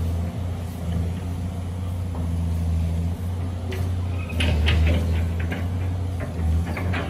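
Caterpillar hydraulic excavator's diesel engine running steadily. From about four seconds in, the bucket works into the dirt pile with scraping and clattering.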